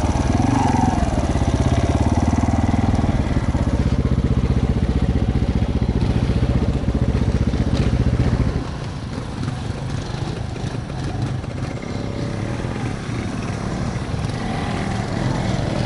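Off-road motorcycle engine running under the rider as the bike moves over a leaf-covered forest trail, heard from on the bike. It is loud at first and drops noticeably in level about eight and a half seconds in.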